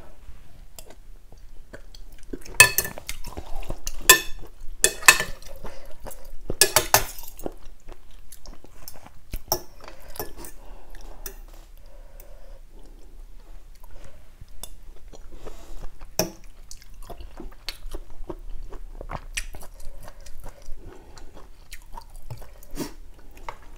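Close-miked eating of kuay jap rice-noodle soup: chewing, with a metal spoon and fork clinking and scraping in the bowl. Four loud sharp strokes come between about two and seven seconds in, then the eating goes on more quietly.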